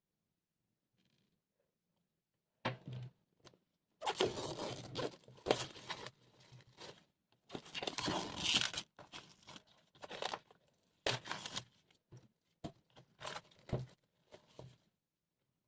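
Packaging being torn open and crinkled by hand, in irregular spells of a second or two, starting about three seconds in and stopping near the end.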